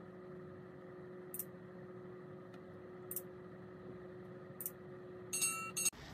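Sound effects of a subscribe-button animation: three short mouse-like clicks spaced about a second and a half apart, then a brief bell-like chime near the end, over a steady faint hum.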